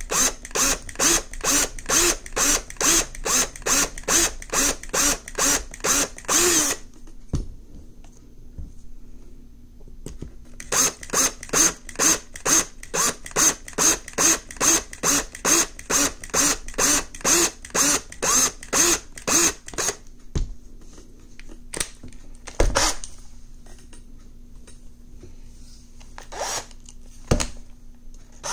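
Power drill drilling into the metal post of a Hot Wheels diecast base, deepening the pilot hole. It runs in short rapid bursts, about three a second, in two runs with a pause of a few seconds between them. After the drilling stops come a few separate knocks.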